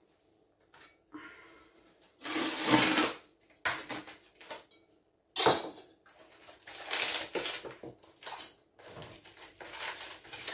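Kitchen handling noises: an irregular run of rustles, scrapes and light knocks as things are moved about, the loudest burst about two to three seconds in.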